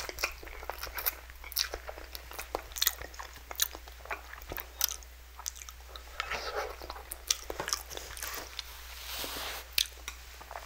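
Close-miked chewing and slurping of spicy instant noodles, full of sharp wet mouth clicks, with a longer slurp about six seconds in and another shortly before the end.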